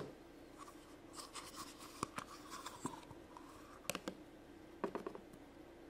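Faint handling of a plastic Play-Doh tub as a lump of Play-Doh is worked out of it: light scraping, with a few sharp clicks.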